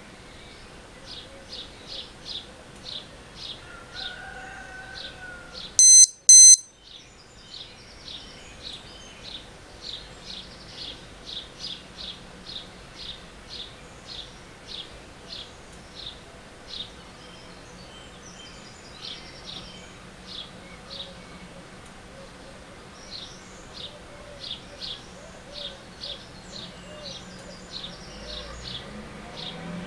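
Two short, loud electronic beeps about six seconds in: the alert of an AcuRite 02020 lightning detector. Behind them, a high chirp repeats evenly about twice a second.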